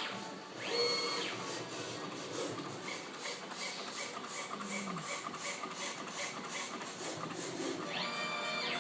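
Pattern plotter-cutter machine running: its drive motors whine up in pitch, hold, then fall away as the head carriage makes a move, near the start and again near the end. Between moves there is a steady mechanical noise with about three ticks a second.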